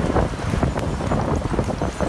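Storm wind gusting hard and buffeting the microphone, heard as an uneven low rumble under a hiss of wind and rain.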